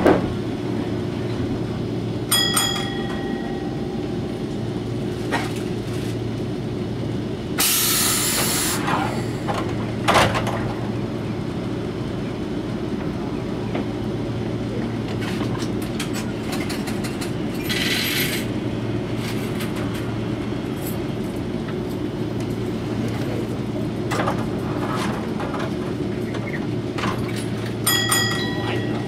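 Interior of a Toyohashi Railway 3500-series streetcar standing at a stop: a steady hum from the tram's equipment, broken twice by a short sharp hiss of air, with a knock and a couple of brief clicking tones.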